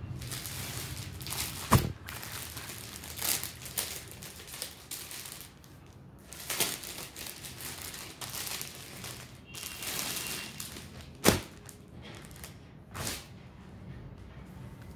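Clear plastic garment packaging crinkling and rustling as clothes are unwrapped and handled, with a couple of louder sharp snaps, about two seconds in and again about eleven seconds in.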